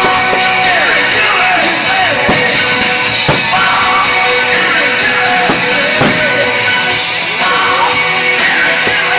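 Rock music with singing, guitar and drums, played loud over a sound system, with sharp hits through it.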